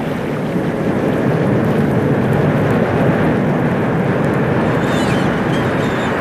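Ocean surf washing onto a beach: a steady, loud roar of breaking waves, with a faint high wavering cry about five seconds in.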